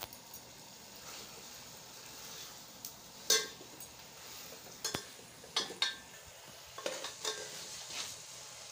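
Steel spoon clinking and scraping against a metal cooking pot as masala is stirred and spooned over a whole fried chicken, several sharp clinks in small clusters from about three seconds in, over a steady low sizzle of the masala cooking on a coal fire.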